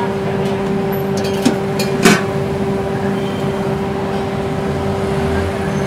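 Steady mechanical hum with a clear pitched tone running through it. Light metal clinks come over it, and about two seconds in a metal spatula strikes the tawa once with a short ringing clang.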